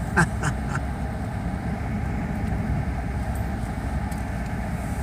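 A car's engine running at idle, a steady low rumble. A brief falling vocal sound comes near the start.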